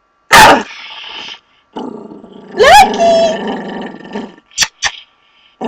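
Pet dog growling in bouts at a person, with a loud sudden sound at the start, a sharp rising cry about two and a half seconds in, and two short sharp sounds near the end: the dog is hostile to her.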